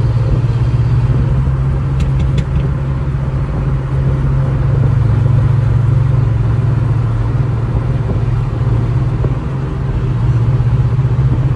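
Steady drone of a BMW E46's engine and road noise heard from inside the cabin while cruising at freeway speed. Two brief clicks sound about two seconds in.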